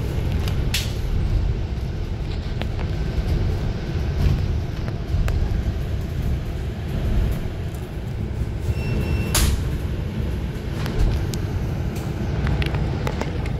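A double-decker bus in motion, heard from its upper deck: a steady low engine and road rumble with a few sharp rattles and knocks from the bodywork, the loudest about nine seconds in.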